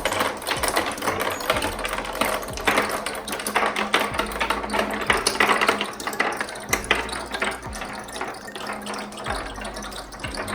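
A pack of marbles rolling and clattering down a marble run track, a dense, irregular rattle of clicks.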